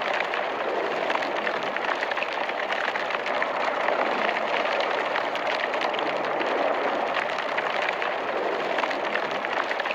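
Incinerator burning: a steady rushing noise with fine crackling.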